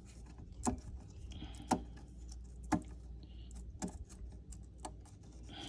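Metal parts of a 4T65E-HD automatic transmission clinking as they are handled during teardown: about five sharp metallic clicks roughly a second apart, over a low steady hum.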